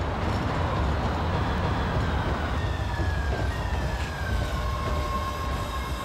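Steady low rumble of a moving vehicle, with faint high squealing tones that slide slowly downward now and then.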